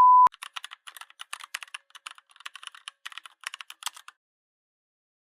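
A short beep, then rapid computer-keyboard typing, a quick run of clicks for about four seconds that stops abruptly.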